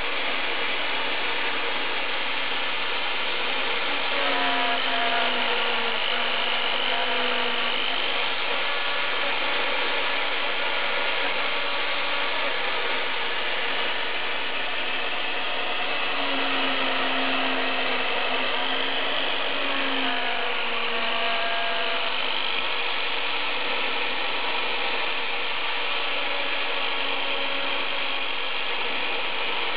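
Homemade CNC router running: the spindle motor whines steadily, while the axis motors sing in tones that rise and fall as the head moves, most clearly twice.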